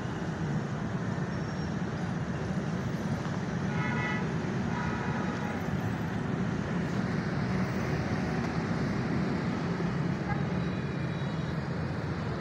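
Steady road-traffic noise from passing vehicles, with a vehicle horn tooting briefly twice about four and five seconds in.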